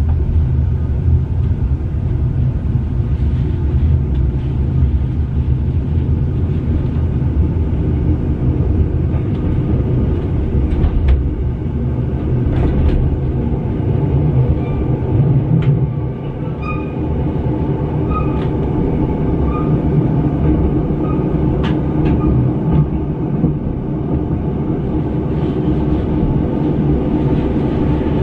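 Metre-gauge passenger train running, heard from inside the carriage: a steady low rumble from the running gear, with a few sharp clicks from the wheels on the track.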